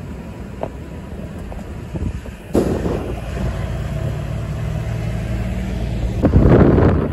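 Street traffic: the engines and tyres of passing vehicles, including a diesel box truck running with a steady low hum in the middle. A louder rush of noise comes near the end.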